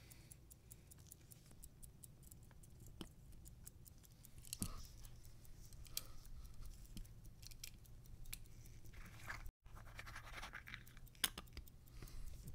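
Faint scratching and scattered small clicks as a gold-plated pocket watch case is handled and turned over in gloved fingers.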